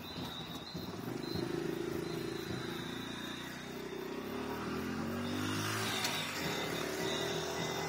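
A motor vehicle's engine running close by, its pitch gliding up and down as it passes.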